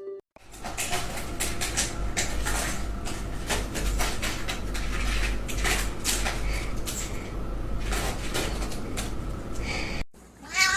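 Irregular knocks and clatter of small household objects over a steady low hum, cutting off sharply near the end.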